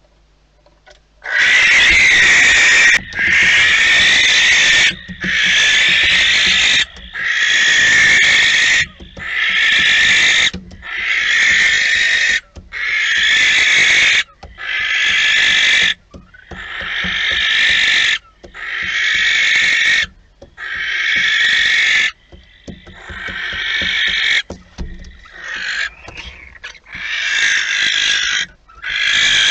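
Barn owls giving long, loud, harsh hissing screech calls, one about every two seconds, starting about a second and a half in. Toward the end the calls get shorter and more broken.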